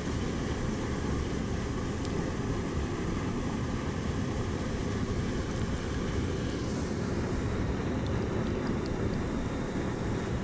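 Steady low rushing noise with no distinct events, and a few faint light ticks near the end.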